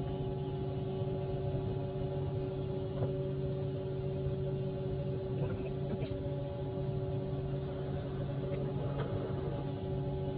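A machine running steadily with an even, fixed-pitch hum, with a few faint clicks and taps.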